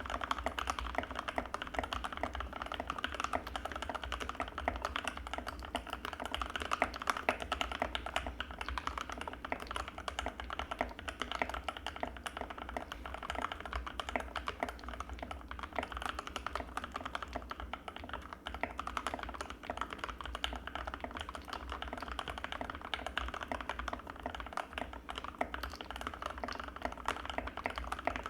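Continuous fast typing on an Anne Pro 2 mechanical keyboard with Gateron Red linear switches: a dense, even run of keystrokes with a creamy tone.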